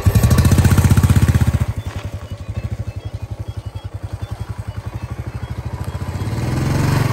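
Royal Enfield Classic motorcycle's single-cylinder engine running with a rapid, even thump. It is loudest for the first second and a half, settles to a steady idle, then builds again near the end as it is revved.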